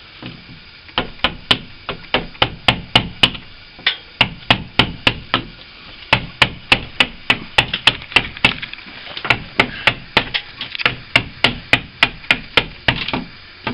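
Hammer blows in a quick, steady series of sharp taps, about three a second, chipping old, cement-hard putty out of a wooden window frame. They begin about a second in and stop just before the end.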